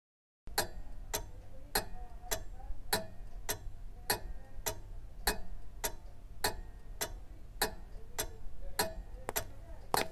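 Pendulum clock with a brass pendulum ticking steadily, a little under two ticks a second, starting about half a second in.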